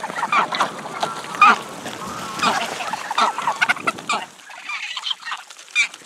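A flock of greylag geese giving short honks and cackles while feeding, many calls overlapping for about the first four seconds, then fewer and more spaced out.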